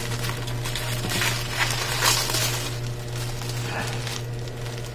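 Plastic bubble wrap crinkling and rustling as it is handled. It is loudest around the middle and dies down about four seconds in, over a steady low hum.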